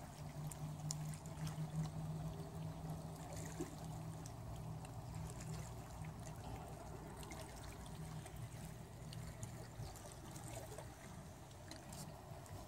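Small waves lapping and trickling against the rocky lakeshore, over a low steady hum.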